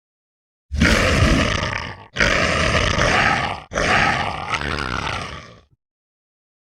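Three Dakotaraptor roar sound effects played back to back, each about a second and a half long, with the third trailing off about two-thirds of the way through.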